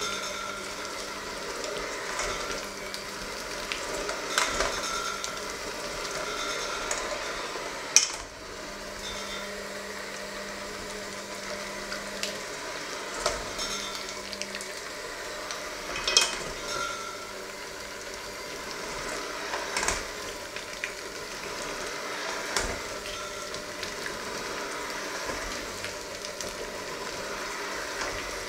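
Handheld electric mixer running steadily, its beaters churning a thick, crumbly mixture in a stainless steel bowl. Every few seconds the beaters clink against the metal bowl, sharpest about eight seconds in.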